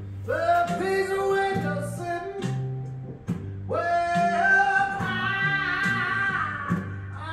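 Background music: a song with singing over guitar and a steady beat, two sung phrases starting near the beginning and about halfway through.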